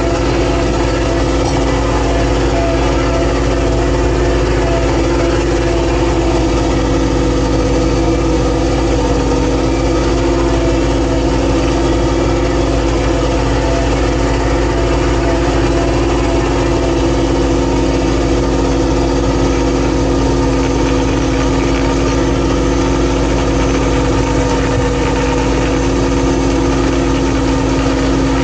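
A boat engine running steadily at a constant speed, a loud unbroken drone with a steady hum.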